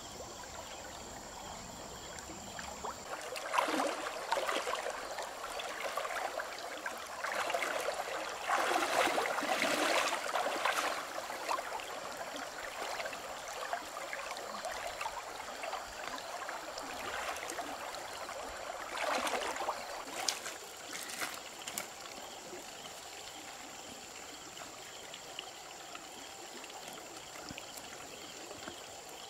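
Shallow stream running over stones, with stretches of louder irregular splashing and sloshing as the water is waded through and hands work in it, a few seconds in and again about two-thirds of the way through.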